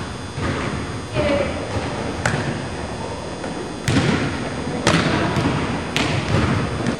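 Volleyball thuds from a setting drill: sharp separate impacts of the ball being tossed, set and landing on the gym floor, about one a second from about two seconds in.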